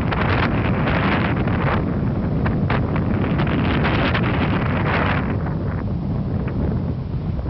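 Heavy wind buffeting the microphone of a moving vehicle: a loud, low rumbling rush with gusty surges that ease off about five seconds in.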